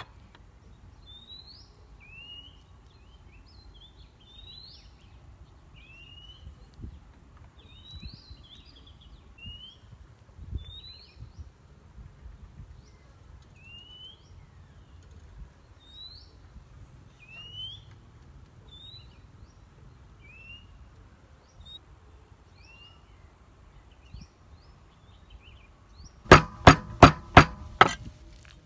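Birds chirping with short, rising notes repeated every second or so. About 26 seconds in, a cleaver starts chopping small fermented fish on a wooden chopping block in fast, loud strokes, about four a second.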